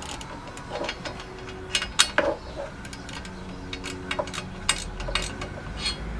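Ratchet spanner clicking in short irregular runs as bolts are wound into a steel diff guard bracket, with the busiest clicking about two seconds in and again near five seconds.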